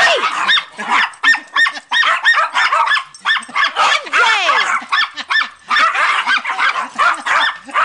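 A pack of small dogs, chihuahuas among them, barking and yipping excitedly during a ball game, in rapid overlapping high-pitched yaps several a second, with a couple of longer falling cries among them.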